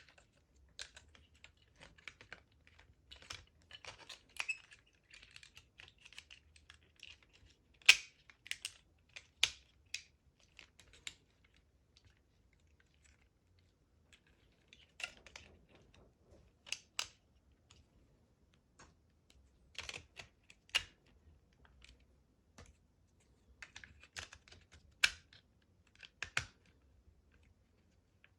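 Irregular clicks and light knocks of steering-wheel parts and fasteners being handled and pulled off. A few sharper knocks stand out, the loudest about eight seconds in and near the end, with lulls in between.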